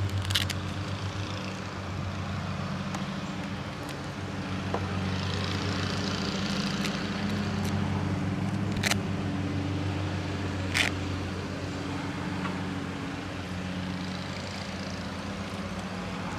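A petrol lawnmower engine runs steadily in the background with an even hum. Two light clicks come about nine and eleven seconds in, from small parts being handled.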